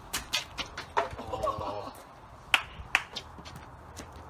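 Scattered sharp knocks and clicks of backyard cricket on paving, ball and plastic bat, with a short warbling call about a second in.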